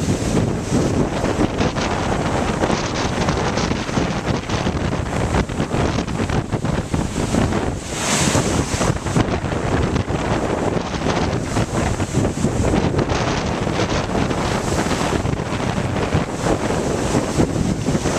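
Strong storm wind from Hurricane Irene buffeting the microphone in gusts, with lake waves washing underneath. One gust swells stronger about eight seconds in.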